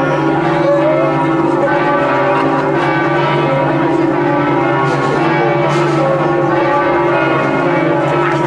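Great Highland bagpipe sounding, its drones holding a steady chord.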